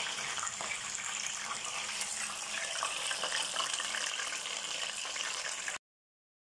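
Whole red tilapia sizzling as it fries in a pan of hot oil, a steady hiss with fine crackles. It cuts off abruptly near the end.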